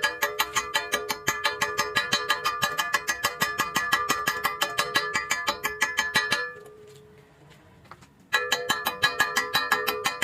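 Background music of rapidly repeated plucked notes, about six a second. It breaks off about six and a half seconds in and starts again nearly two seconds later.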